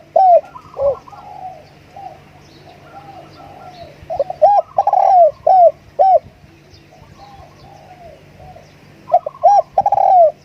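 Spotted doves cooing: a loud phrase of several short arched coos about four seconds in and again near the end, with fainter cooing between them. This is the call used to lure wild spotted doves to a decoy.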